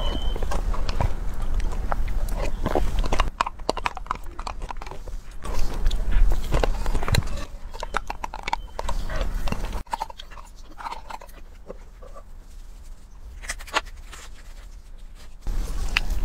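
Close-miked eating sounds: a spoon clicking and scraping in a plastic dessert cup, with lip smacks and chewing, a quick irregular run of small clicks.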